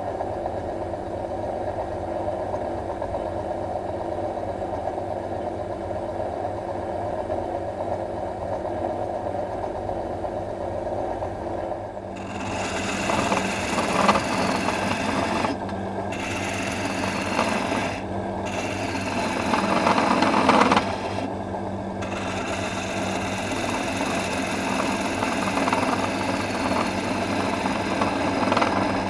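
Small improvised pen lathe, an old electric motor driving the mandrel by belt, running with a steady hum. About twelve seconds in, a hand-held tool starts cutting the spinning walnut pen blank and adds a rough scraping hiss, lifted off briefly three times.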